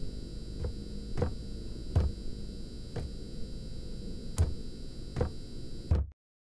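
A low steady hum with a series of irregular heavy thuds, about one a second, that cuts off abruptly near the end.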